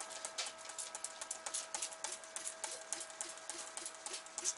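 Spray bottle of degreaser squirted over and over, about three to four short hissing sprays a second, each with a small click of the trigger.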